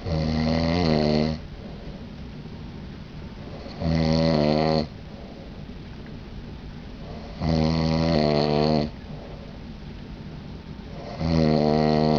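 A man snoring in deep sleep: four loud, regular snores, each a little over a second long, coming about every four seconds with quiet breathing gaps between. The uploader puts the snoring down to an allergy to down pillows.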